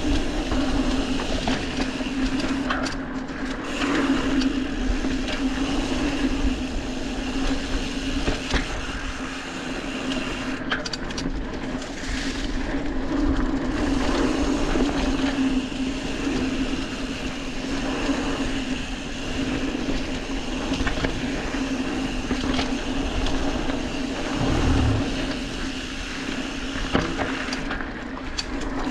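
Mountain bike rolling fast down a dirt singletrack: a steady hum from the wheels, with rattles over bumps and wind noise on the mic.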